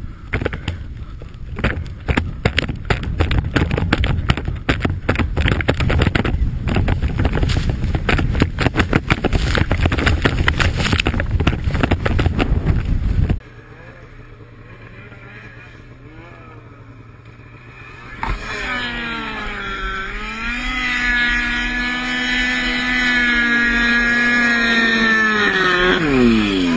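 Snowmobile riding down a steep snow chute: a heavy rumble with many rattling knocks. Partway through the sound drops abruptly, and then a Ski-Doo snowmobile engine revs hard, held high with a wavering pitch for several seconds in deep snow, before the revs fall sharply at the end as the sled tips over.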